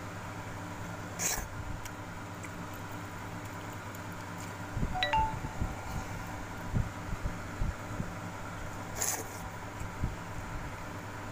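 Soft wet squishes, swishes and low knocks of a hand mixing and scooping watered rice (pakhala) in a steel bowl, over a steady background hum.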